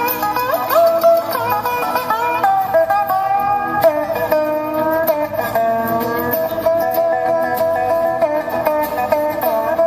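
A live bluegrass band playing an instrumental passage: fiddle, lap steel guitar, mandolin and acoustic guitars together, with a lead line that slides between notes over the strummed and picked strings.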